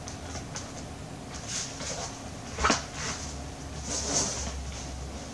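Carded action figures being handled: plastic blister packs rustle and shift, with a knock about two and a half seconds in.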